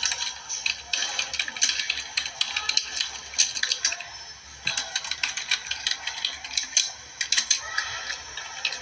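Rapid, irregular clicking of typing on a computer keyboard, with a short lull about halfway through.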